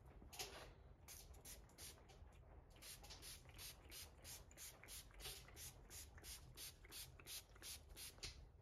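Faint, rhythmic hissing strokes of a cloth rag rubbed back and forth along a steel crosscut saw blade, a few scattered strokes at first, then about three to four a second.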